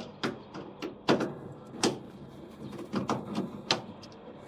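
A Phillips screwdriver undoing the screws at the back of a washing machine's top cover: a series of sharp clicks and knocks at irregular intervals as the screws are turned out and handled.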